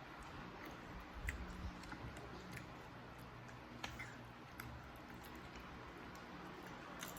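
Faint eating sounds: quiet chewing and scattered small clicks, over a low steady hum.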